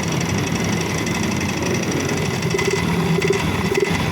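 Yamaha Mio i125 scooter's single-cylinder engine running steadily and noisily, with a fast rattle through it. The mechanic takes the noise for a worn crankshaft side bearing.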